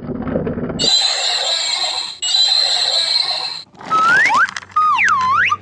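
Edited-in cartoon sound effects: a low rumbling start, then two long harsh hissing screeches one after the other, then a whistle gliding up and down several times near the end.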